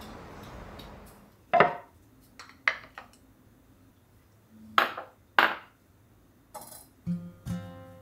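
Glass prep bowls set down one at a time on a stone countertop: several separate sharp clinks and knocks with a short ring. Before them a steady hiss fades out, and near the end acoustic guitar music comes in.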